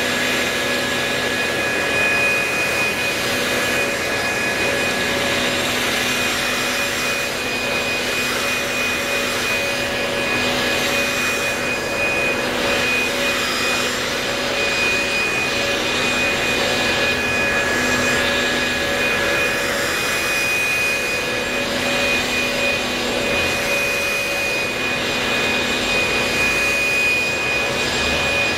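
Several corded electric leaf blowers running at once: a steady high whine over a rush of air. The air rush swells and fades every couple of seconds as the blowers are swept back and forth over wet asphalt, pushing off standing rainwater.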